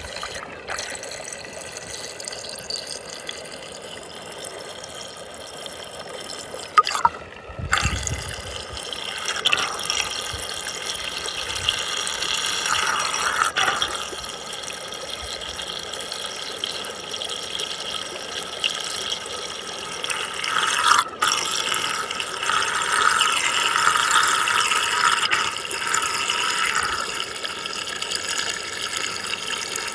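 Muddy water swirling down a fast whirlpool vortex, a steady rushing and splashing that briefly drops out twice, about 7 and 21 seconds in.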